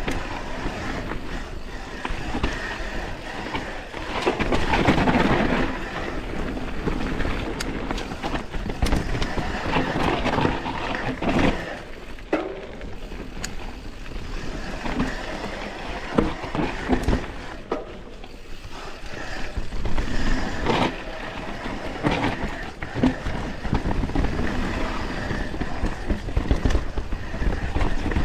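YT Capra Core 3 MX mountain bike descending a rough trail: knobby tyres rolling over dirt and rock with a steady rumble, broken by irregular knocks and rattles from the bike.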